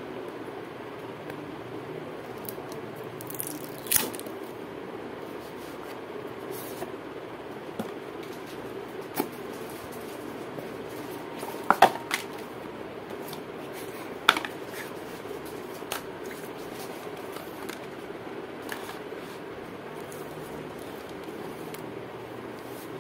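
Cardboard phone box and its paper inserts being handled and unpacked: scattered taps, clicks and rustles, the loudest a quick cluster of sharp clicks about midway, over a steady low hum.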